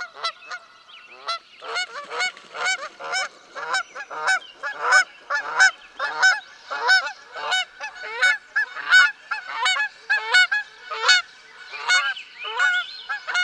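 Rhythmic squeaking, one short squeak every half second or so, while a small screwdriver drives the bottom-case screws back into a 13-inch MacBook Pro.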